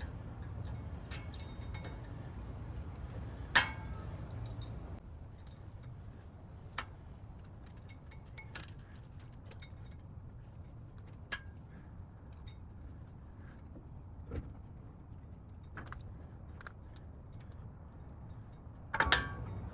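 Scattered metallic clicks and clinks of new brake pad clips being snapped into a caliper bracket, with a sharp click about three and a half seconds in and a louder one near the end, over a low steady hum.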